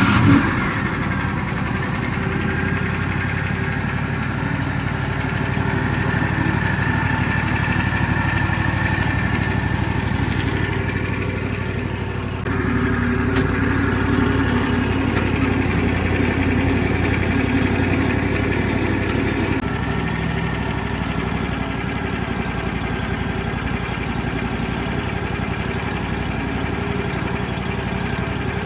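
Wood-Mizer sawmill's engine starting and then running steadily. Its sound steps up abruptly, louder, about twelve seconds in, and changes again about twenty seconds in.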